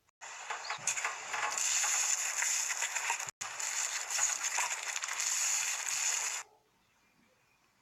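Slime being squeezed and worked by hand, giving a dense, crackling crunch of many small pops for about six seconds, broken once by a brief gap near the middle, then stopping.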